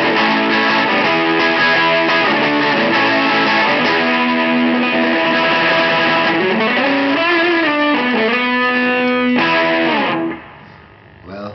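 Electric guitar with humbucker pickups played through the ALV Tubelyzer, a Tube Screamer–clone overdrive pedal, giving a driven, distorted tone: sustained chords and held notes, with notes bent up and down about two-thirds of the way through. The playing stops abruptly about ten seconds in.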